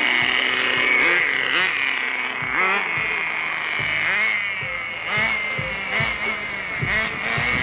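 Electric motor of a small radio-controlled toy car whining as it drives, the pitch swooping up and down about once a second as it speeds up and slows.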